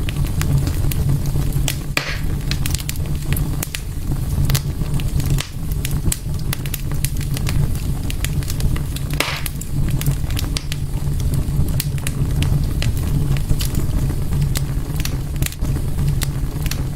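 Wood fire burning in a fireplace with a steady low rumble and frequent sharp crackles and pops.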